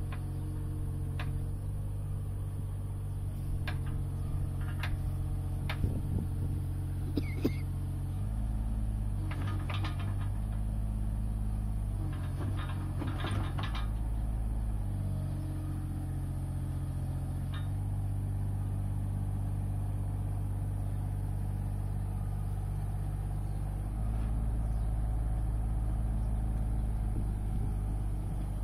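Mini excavator's engine running steadily, its note shifting up and down several times as the hydraulics lift and swing a heavy load on a strap. A few clanks and knocks come through in the first half.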